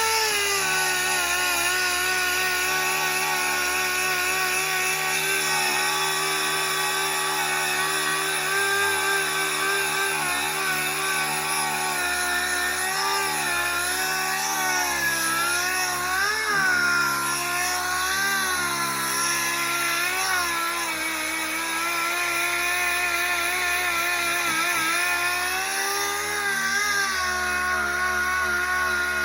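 Power sander running steadily on the car's body panel, coming up to speed at the start, its pitch dipping briefly several times as it is pressed into the work.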